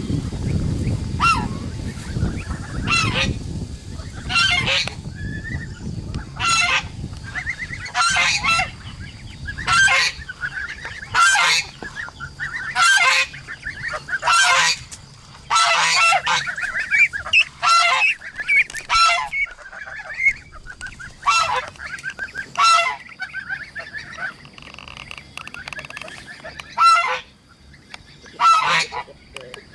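Poultry calling: young Muscovy ducks and geese give short, loud honking calls about every second or two, with softer wavering peeps in between. A low rumble lies under the first third.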